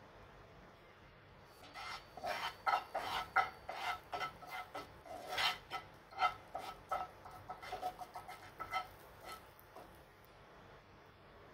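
A flat spatula scraping and spreading butter and red chilli powder across a non-stick frying pan in quick repeated strokes, starting about two seconds in and stopping near the end.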